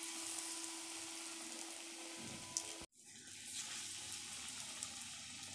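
Breaded chhena chops deep-frying in hot refined oil in a kadai, giving a steady high sizzle. It breaks off briefly about three seconds in, then carries on.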